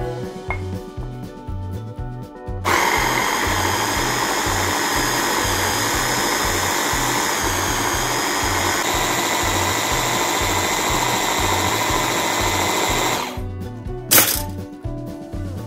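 Electric mini chopper running for about ten seconds, blending cooked zucchini, carrot and onion with processed cheese into a smooth purée. It starts suddenly a few seconds in and stops near the end. A single sharp click follows.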